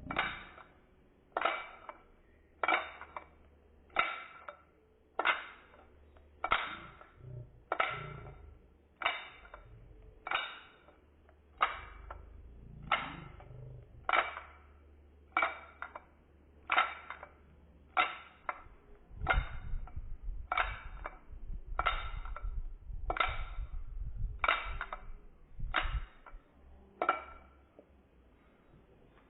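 Balero (cup-and-ball toy) ball clacking against the cup or stick, a sharp knock with a short ringing about once a second, over and over, then stopping.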